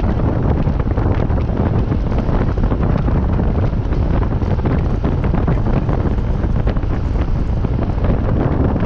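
Steady, loud wind buffeting on the microphone, most of its weight low down, with a vehicle's running noise blended underneath, as heard from a moving vehicle.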